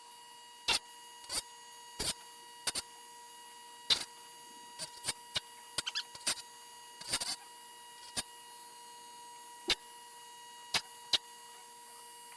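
Irregular sharp clicks and clacks of metal, about fifteen, with a short cluster around six seconds in, as a sawmill bandsaw blade is worked tooth by tooth through a homemade sharpening set-up. A faint steady high hum runs underneath.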